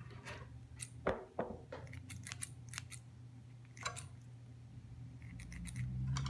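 Scissors snipping serger threads: a string of short, sharp cuts.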